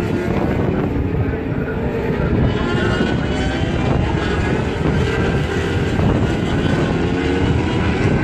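Several superbike racing motorcycle engines at race speed, overlapping, their pitch rising and falling as they accelerate and change gear.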